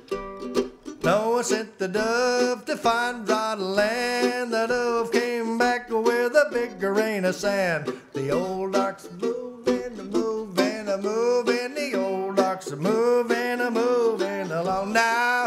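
F-style mandolin played solo, a bluegrass melody with notes following one another without a break.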